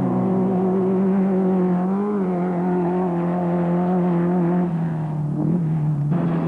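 Off-road race vehicle's engine running at steady high revs, the pitch lifting briefly about two seconds in and easing down slightly near the end.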